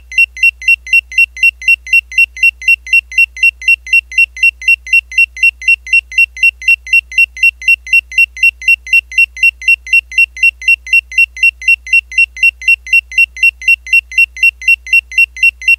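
Countdown timer alarm going off at zero: short, high electronic beeps repeating evenly about three to four times a second.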